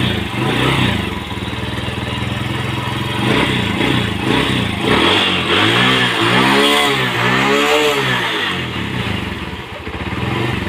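Kawasaki Boxer single-cylinder motorcycle engine running just after starting, with the throttle blipped twice about two-thirds of the way in before it drops back to a fast idle. This is a test run after a clutch housing replacement.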